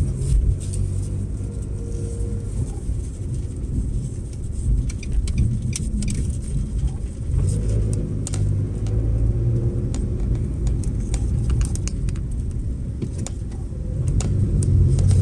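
Engine and road noise heard inside a car's cabin while driving, a steady low hum that swells at times and grows louder near the end, with scattered light clicks.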